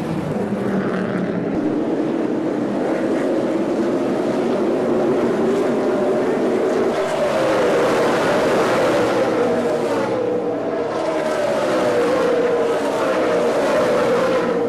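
NASCAR Craftsman Truck Series V8 race trucks running at speed, several engines overlapping, their pitch sliding slowly up and down as they pass.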